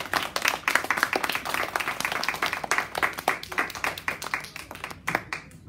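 Audience applauding: many hands clapping in a dense, irregular patter that thins out near the end.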